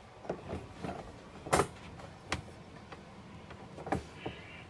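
A few sharp metallic clicks and knocks from a wire pet crate's door being handled, the loudest about one and a half seconds in.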